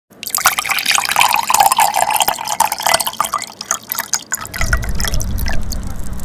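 Crackling fireworks: a dense spray of sharp pops and crackles that thins out after about four seconds, when a low rumble comes in.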